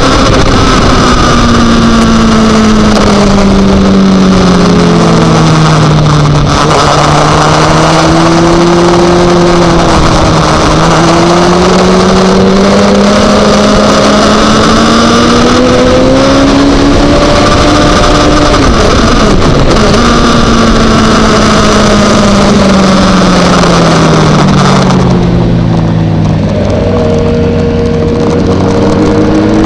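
Onboard sound of a supersport motorcycle's engine at speed, its pitch falling and rising again and again as the rider rolls off and back on the throttle, with wind rushing over the microphone. About 25 seconds in the wind noise drops away and the engine settles to a lower, steadier note as the bike slows.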